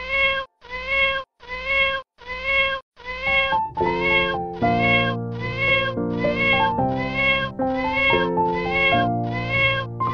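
A cat's meow, sampled and repeated in strict rhythm about one and a half to two times a second as a novelty meow song. About four seconds in, keyboard chords and a bass line join under the meows.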